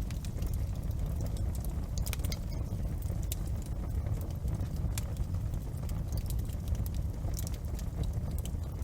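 Wood fire crackling in a fireplace: scattered sharp pops and snaps at irregular intervals over a steady low rumble.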